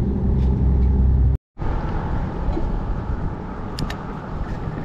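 Steady outdoor background noise: a heavy low rumble that cuts out in a sudden brief dropout about a second and a half in, then a lighter steady hiss with a faint high hum and a few small clicks.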